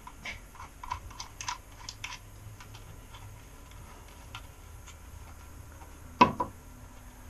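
Storm door insert retainer clips being handled and fitted: a run of light clicks and taps, then a pause and a sharp knock with a smaller one right after it about six seconds in.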